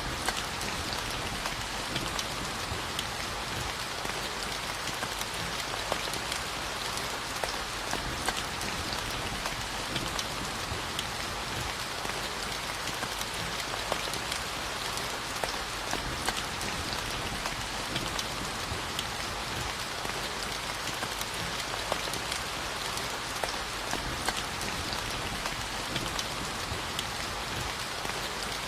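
Steady rainfall pattering on a surface, an even hiss with the ticks of individual drops scattered through it.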